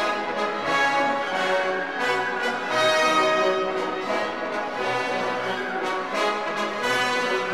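Orchestral music with brass playing sustained notes, laid over the flight footage.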